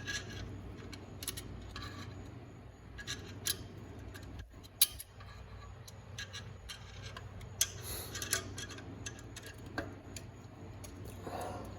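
Scattered metal clicks and light scraping of screwdriver tips and a steel snap ring being worked into its groove over the low/reverse piston return spring of a 4L60E transmission, with one sharper click a little before the middle. A steady low hum runs underneath.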